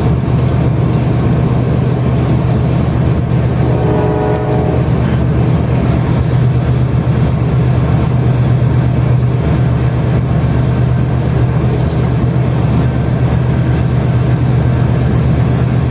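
Train running through at high speed with a loud, continuous rumble. A short horn blast sounds about four seconds in, and a thin, steady high tone runs from about nine seconds in.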